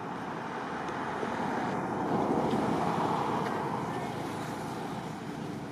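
Steady rushing road-traffic noise that swells about two seconds in and then eases off.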